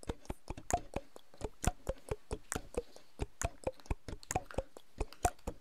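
Background music of light ticking percussion: a steady, even rhythm of quick dry clicks, several a second, with a slightly deeper wood-block knock about once a second.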